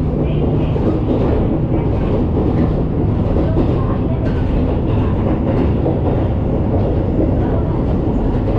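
Interior running noise of a Shimabara Railway diesel railcar on the move: a steady, loud rumble of the engine and the wheels on the track.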